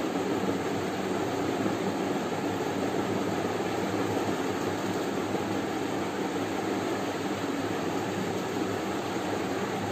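Steady rushing background noise with a faint low hum, unbroken throughout.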